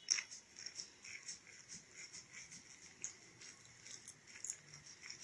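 Faint, irregular soft tapping and rustling of hands pressing down the edges of stacked dry roqaq pastry sheets in a baking tray.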